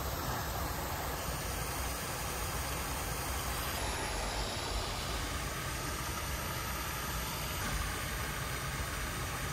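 Steady rushing of a shallow stream flowing over rocks and down a small cascade.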